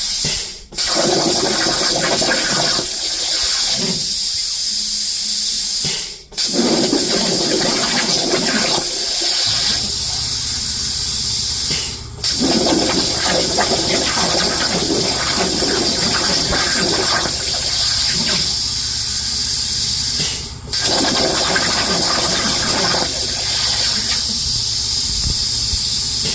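A torch working 20 gauge sheet steel at 215 inches per minute: a steady loud hiss in long runs, broken by short pauses four times.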